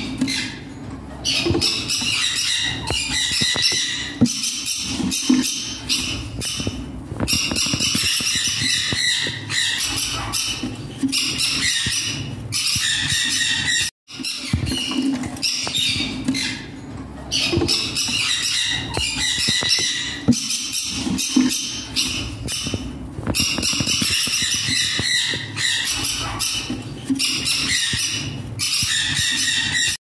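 Newly hatched turquoise green-cheeked conure chicks calling in the nest box: runs of rapid, squeaky begging calls lasting a few seconds each, with short pauses between them. The sound cuts out for a moment about halfway.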